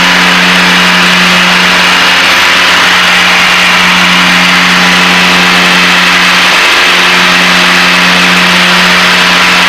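Piper Seneca cockpit noise in cruise flight: the twin piston engines and propellers droning steadily with a strong low hum.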